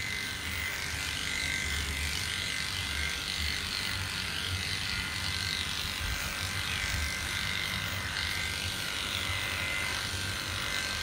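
Electric dog-grooming clippers fitted with a 3F blade running steadily, a constant buzz as they cut through a dog's curly coat.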